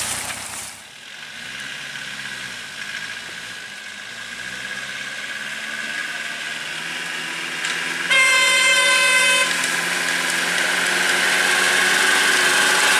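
Engine of a 1991 Chevrolet pickup loaded with cassava, running as the truck drives nearer and growing steadily louder. About eight seconds in, one steady horn blast lasts about a second and a half.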